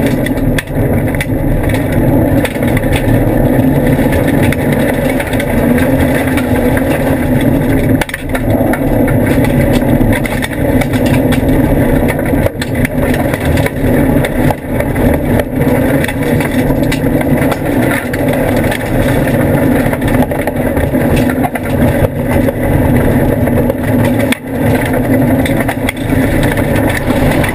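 Mitsubishi FTO rally car's engine and road noise heard from inside the cabin as the car is driven hard at speed, loud and continuous, with brief dips in level twice.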